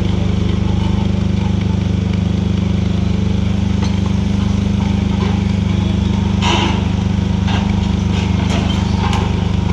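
Excavator's diesel engine running steadily under load, with a short scrape about two-thirds of the way in and several sharp clanks after it.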